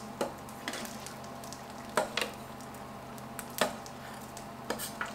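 Half a dozen light, scattered clicks and taps of a utensil on an egg cooker's metal egg rings and cookware as the egg yolks are popped, over a low steady hum.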